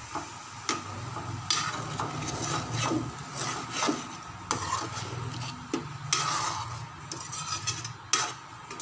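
Metal spoon stirring chicken gravy in a pan, scraping against the pan in irregular strokes.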